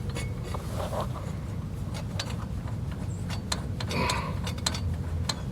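Scattered light clicks and a brief scrape as hand tools and metal hub parts are handled, over a steady low hum.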